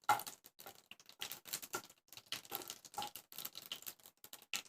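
Mustard and cumin seeds crackling in hot oil in a pan: irregular sharp pops, several a second, the loudest right at the start. The seeds are bursting as the oil tempers them.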